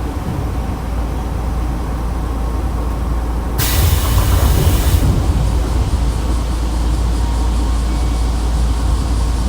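Inside a Nankai Kada Line electric train: a steady low rumble, broken about three and a half seconds in by a loud hiss of released compressed air lasting about a second and a half, typical of the air brakes or door pneumatics at a station stop.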